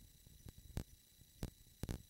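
Faint steady hiss broken by a few sharp clicks and knocks, two of them close together near the end.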